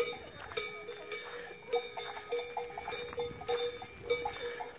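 Cowbells swinging and clanging in a steady walking rhythm, a stroke a little more than every half second, each one ringing on.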